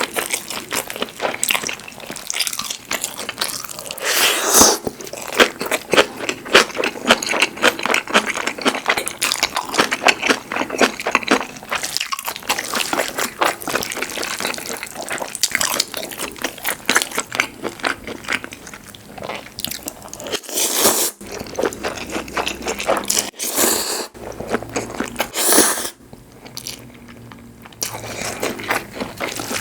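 Close-miked eating of braised pork feet (jokbal) and buckwheat noodles: wet chewing and biting with many small crackling clicks, and a few louder moments scattered through it.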